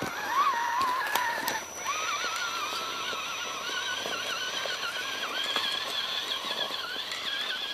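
Electric motor and geared drivetrain of a Vaterra Twin Hammers RC rock crawler, a Holmes Hobbies BRXL brushless on a 3S LiPo, whining as it climbs a steep rocky slope. The pitch wavers with the throttle, dips briefly just under two seconds in, then settles higher. There are a couple of sharp clicks about a second in.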